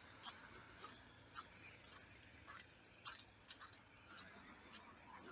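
Faint footsteps crunching in snow at a steady walking pace, a little under two steps a second.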